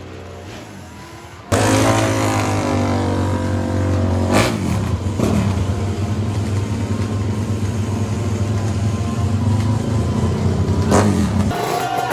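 Drag-racing motorcycle engine running loud and close, held at steady revs. It starts suddenly about a second and a half in and stops shortly before the end.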